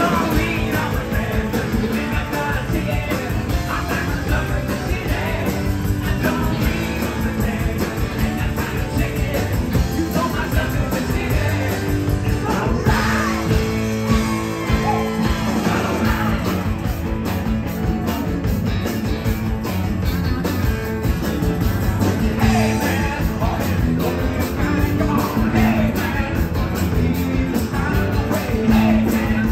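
A live rock band plays loud, driving rock and roll on drum kit, electric bass and electric guitars, with a male lead singer and a second voice.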